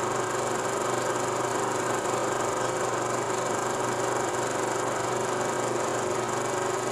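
Steady hum with constant hiss and no distinct events, the noise floor of a silent film transfer.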